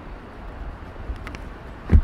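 City street background with a steady low traffic rumble, a few faint clicks a little past the middle, and one loud low thump just before the end.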